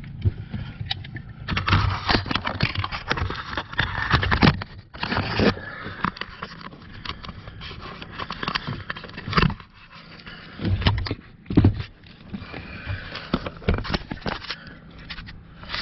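Hand tools and parts being handled in a car's footwell: scraping, rustling and irregular clicks, busiest in the first few seconds, with a few heavier knocks about two-thirds of the way through.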